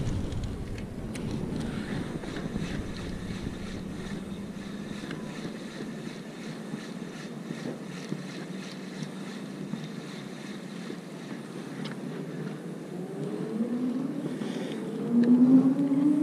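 Steady wind on the microphone over a low outdoor hum. In the last few seconds an engine grows louder and rises in pitch as it passes.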